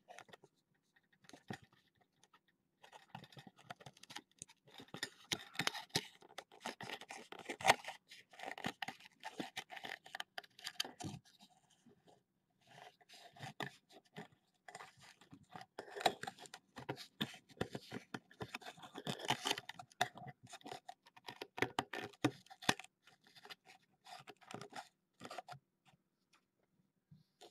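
Irregular scratching and scraping noises with quick clicks, in two long stretches broken by a short lull about twelve seconds in.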